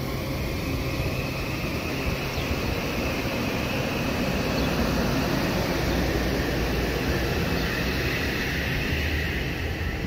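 Metro-North M8 electric multiple-unit train rolling slowly past the platform: a steady running sound with a faint high whine over it.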